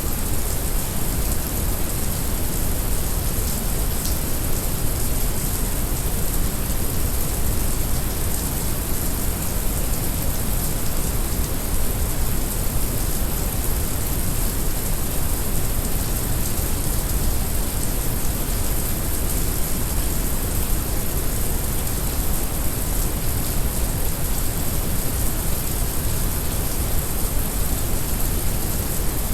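Heavy rain falling steadily, mixed with brown noise: an unbroken hiss of rain over a deep, even noise.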